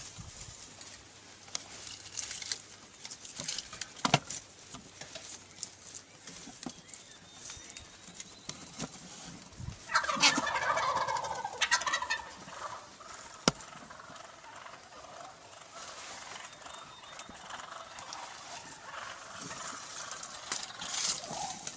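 Wild turkey gobbling: one loud, rattling gobble about halfway through, among faint rustling and scattered clicks.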